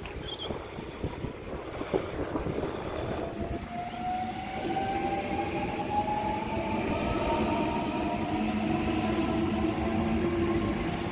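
Sydney Trains Waratah double-deck electric train running along the platform; about four seconds in, its traction motors start a whine that rises steadily in pitch as it accelerates away.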